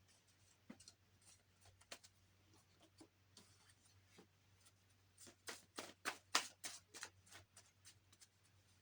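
Faint shuffling and flicking of a deck of reading cards: a scatter of soft taps, then a quicker, louder run of flicks about two-thirds of the way in.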